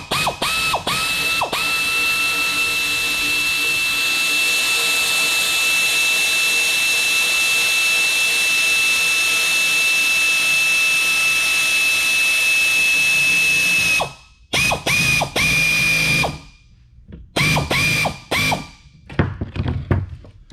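Power tool spinning a nut down a leaf spring pack's center pin, with a high motor whine. It gives a few short bursts, one long steady run of about twelve seconds, then more short bursts as the nut snugs down, the pitch rising at the start of each burst.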